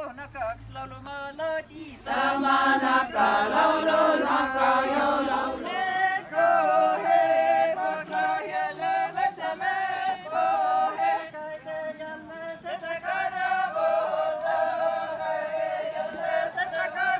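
Seto leelo, the polyphonic folk song, sung by a group of voices. It is thin for the first couple of seconds, then the fuller chorus comes in, and from about six seconds in a high note is held over the other voices.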